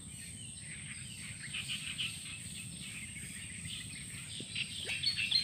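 Quiet outdoor ambience: scattered bird chirps and insect calls over a steady high-pitched whine and a low background rumble.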